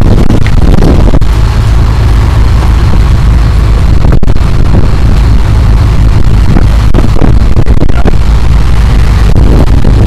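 Loud wind buffeting the microphone on a moving motorboat, a steady low rumble with the boat's engine and wake churning underneath. The sound drops out for an instant about four seconds in.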